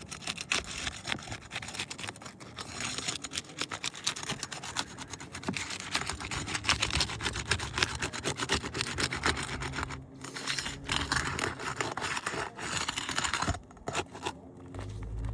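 Dense scraping and crackling against asphalt shingles as the nails are worked out of the shingle tab above the one being replaced, easing off briefly twice.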